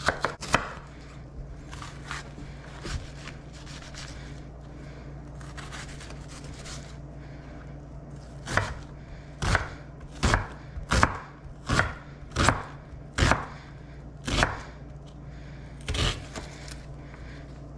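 Chef's knife dicing a red onion on a bamboo cutting board: a few light cuts, then from about halfway a run of about nine sharp knife strikes on the board, a little over one a second.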